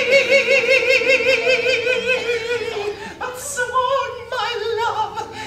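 A voice singing one long high note in a mock-operatic style, with wide vibrato, that slowly sinks in pitch. About three seconds in it breaks off with a hiss and goes on in shorter wavering sung phrases.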